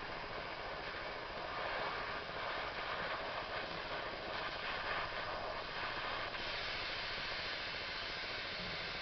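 A torch flame hissing steadily while it heats a fouled spark plug to burn it clean.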